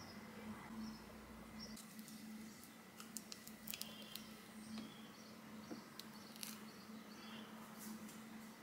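Faint clicks and scrapes of a metal spoon against a plastic Ninja Creami pint as it digs into the firm ice cream, scattered from about two seconds in. A low steady hum runs underneath.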